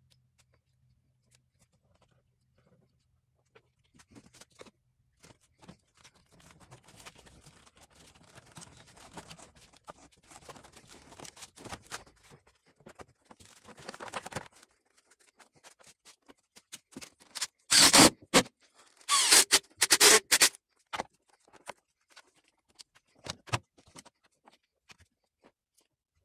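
Gloved hands working in a car's engine bay: soft rustling and scraping of wires, hoses and plastic parts, then a cluster of loud clacks and knocks as parts are fitted back in place, with a few more near the end.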